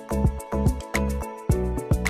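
Background music with a steady beat: bass notes and regular percussion hits.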